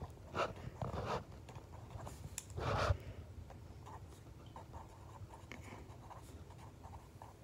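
Pen scratching faintly on lined notebook paper as words are written out by hand, with a few louder rustling strokes in the first three seconds.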